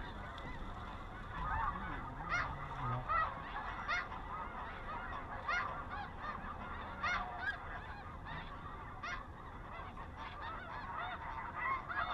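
A chorus of snow goose calls: many short, overlapping honks.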